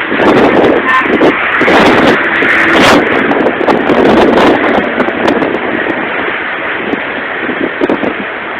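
Strong wind buffeting the microphone: a loud, gusting rush of noise with scattered sharp crackles.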